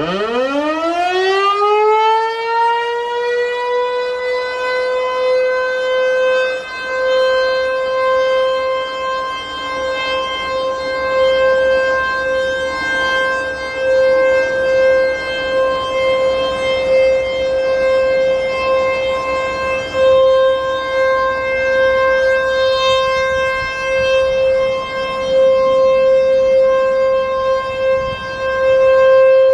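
American Signal Tempest T-128 eight-port rotating storm warning siren starting up: its pitch climbs quickly over the first two seconds, then holds a steady Alert tone. Its loudness wavers as the horn slowly turns.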